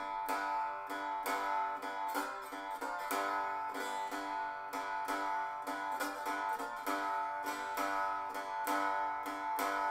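Four-string cigar box guitar with a dog-dish resonator cone, played amplified through a piezo pickup: a steady run of picked notes on open and fretted strings, ringing on. The piezo on the dog-dish cone gives it a far less clean tone than a regular guitar pickup.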